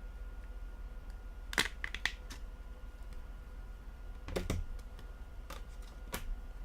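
Sharp plastic clicks and snaps, about half a dozen spread over several seconds, from an older Samsung Galaxy phone's removable plastic back cover as its clips are unclipped and the cover is handled. A faint steady hum lies underneath.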